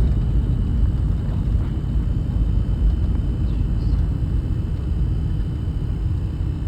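Steady low road and engine rumble inside a moving car's cabin, with a faint steady high whine above it.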